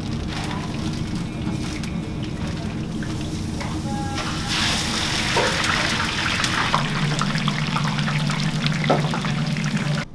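French fries sizzling in the hot oil of a commercial deep fryer. The sizzle starts loud and sudden about four and a half seconds in, when the basket of fries goes into the oil, and it keeps on until the end.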